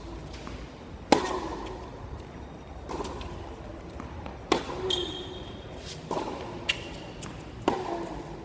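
Tennis rally on a hard court: racket strikes on the ball and ball bounces, about six sharp pops one to two seconds apart, the loudest about a second in.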